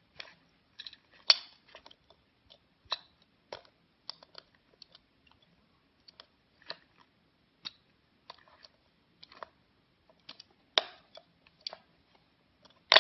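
Small plastic and foil objects being handled: irregular sharp clicks and short crinkles, loudest about a second in and again near the end.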